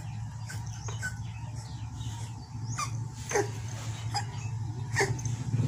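A cat giving short, high cries that fall in pitch, about seven times, while it is held down and restrained. A steady low hum runs underneath.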